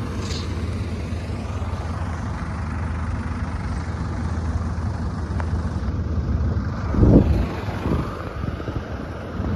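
Diesel tractor engine running steadily with a low hum, with a louder rushing swell about seven seconds in.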